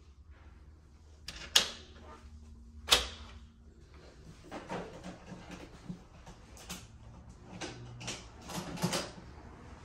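Two sharp knocks about a second and a half apart, then a run of lighter knocks and clicks.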